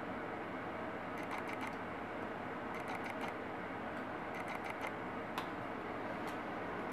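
Light plastic clicks and taps from handling a Toshiba laptop's keyboard and case parts, coming in several short clusters over a steady background hiss.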